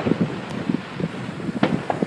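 Fireworks going off in the distance as a few sharp pops: one at the start and two close together near the end. Wind buffets the microphone throughout.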